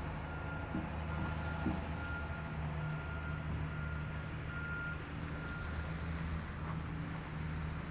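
A vehicle's reversing alarm beeping about once a second over a steady low engine hum. The beeps stop about six seconds in.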